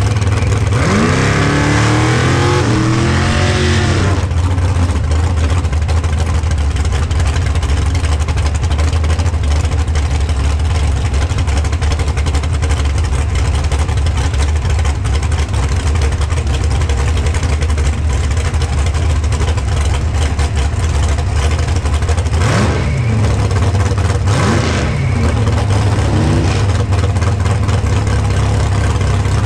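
Drag racing car's engine idling with a steady low drone as the car moves up toward the starting line. Revs rise and fall for a few seconds near the start, and there are two quick throttle blips later on.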